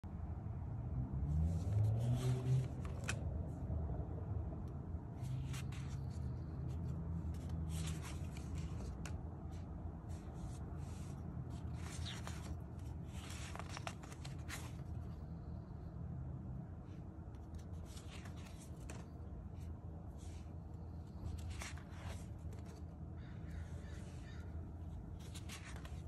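Paper pages of a spiral-bound sketchbook being turned one after another, a brief rustle every few seconds, over a steady low room rumble. A louder low handling sound comes about two seconds in.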